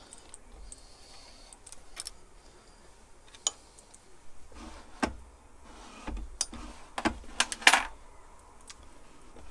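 Scattered metallic clicks and light knocks of an Atlas 10-inch lathe's cross-slide feed lever and handwheel parts being fitted and worked by hand, with a quick run of sharper clicks about three quarters of the way through.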